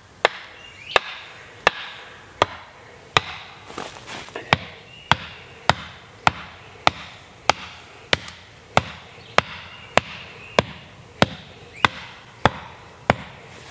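An axe head pounding the top of a wooden stake to drive it into the ground, about twenty steady blows, roughly one and a half a second.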